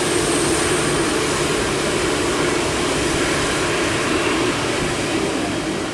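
Boeing 747-8 freighter's four GEnx turbofans running while the jet taxis, a steady rush of jet engine noise.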